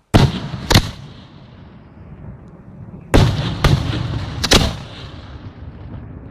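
Fireworks display: aerial shells bursting with sharp bangs, two in quick succession at the start and three more about three seconds in, each trailing off into a low rumbling echo.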